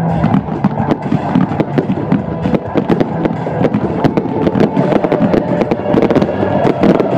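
Fireworks display going off in a rapid, dense barrage: many shells bursting close together with bangs and crackling.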